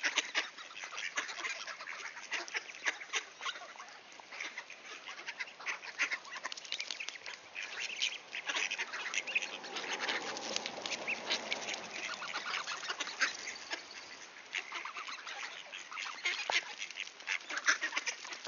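A flock of mallards and American black ducks quacking and feeding on pavement, with a dense patter of short, sharp clicks from bills pecking at food. The quacking swells, fuller and lower, a little past the middle.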